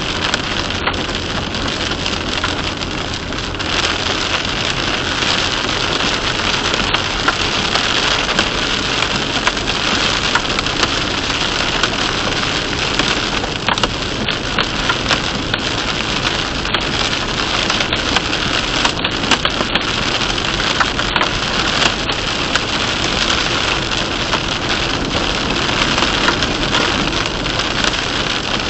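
Heavy rain pelting a moving car's windshield and roof, heard from inside the car, mixed with the hiss of tyres on the wet road. The rain sounds as a steady dense patter, a little heavier from about four seconds in.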